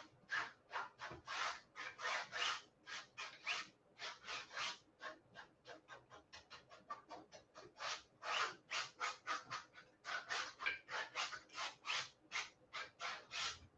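Small palette knife scraping and spreading paint across a small stretched canvas in quick repeated strokes, about three or four a second, softer in the middle with a couple of short pauses.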